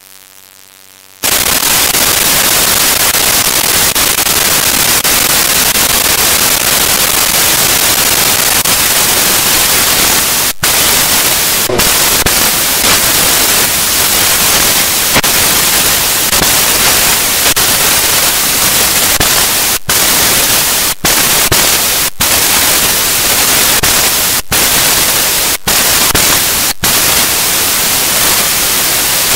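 Loud, steady static hiss like white noise, starting about a second in and broken by several brief, abrupt dropouts in the second half.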